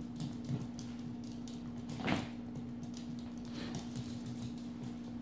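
Pomeranian puppy tussling with a bath towel on a hardwood floor: small claws tapping and scrabbling on the wood and the towel rustling, with one louder scuffle about two seconds in.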